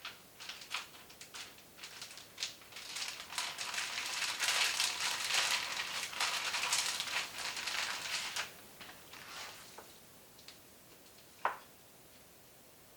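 Food-prep handling noises: scattered clicks, then several seconds of dense crackling and crinkling that fades out, and one sharp ringing clink near the end.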